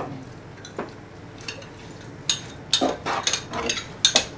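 Plastic rice paddle and metal spoon clicking and scraping against each other and the wooden sushi tub as vinegared rice is mixed. The short clicks are scattered, and thicker in the second half.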